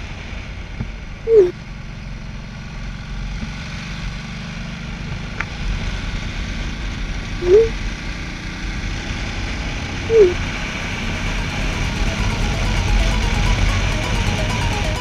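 Ducati Multistrada 1200 S's L-twin engine running at road speed with wind noise, heard from the rider's helmet camera. Three short loud tones cut through it about one and a half, seven and a half and ten seconds in, and faint music comes in near the end.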